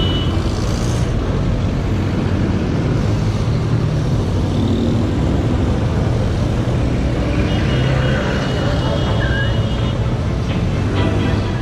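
Road traffic from passing cars, motorcycles and jeepneys, with a steady low wind rumble on the microphone of a moving bicycle camera.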